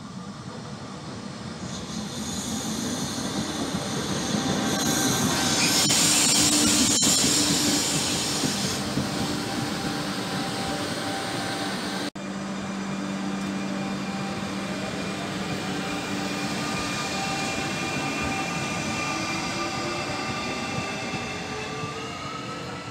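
Regional passenger train passing close along a station track, with wheel-and-rail noise and a high hiss, loudest about six seconds in. After a sudden cut, a Trenitalia Minuetto electric multiple unit approaches with a motor whine that rises in pitch.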